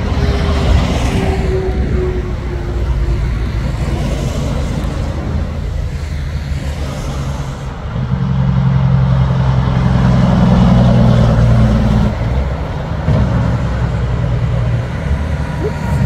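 Highway traffic noise: heavy trucks and cars passing, with a falling whine from a passing vehicle in the first few seconds. From about eight seconds in, a truck's diesel engine drones steadily and loudly for around four seconds, then eases off.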